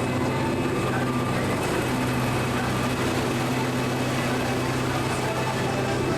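Steady low mechanical hum of an amusement-ride vehicle in motion, even in level throughout.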